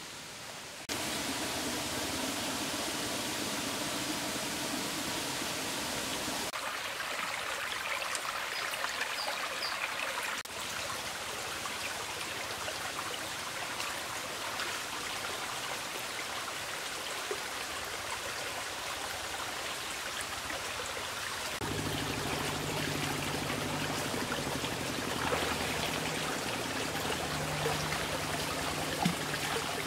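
Shallow stream running over rocks, a steady rush of water, with a few light knocks near the end.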